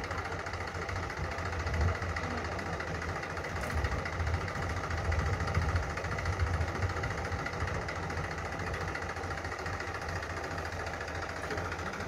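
Heavy diesel engine idling steadily, a low even rumble with no revving.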